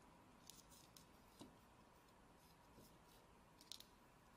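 Near silence with a few faint clicks and small rustles of jumper wires being pushed into a breadboard and Arduino header pins, the sharpest click a little before the end.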